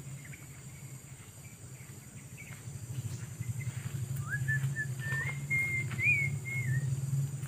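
Footsteps crunching through dry grass and leaves, getting closer and louder. About four seconds in, a clear whistle of about three seconds rises and then holds at a few steady pitches, over a steady low hum.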